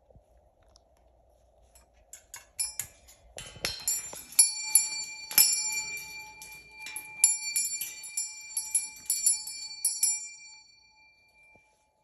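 Small metal bell rung in a run of quick, irregular strikes starting a couple of seconds in, each strike ringing on. The ringing fades out near the end.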